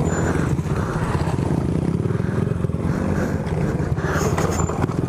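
Small pit bike engine running at low, steady revs while being ridden, heard close up from the bike itself.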